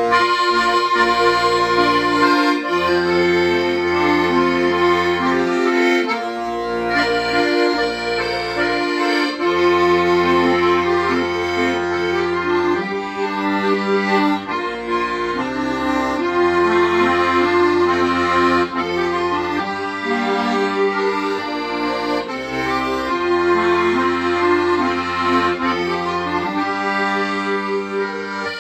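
Accordion playing a slow melody in held notes over a low bass-and-chord accompaniment that sounds in blocks of a second or more.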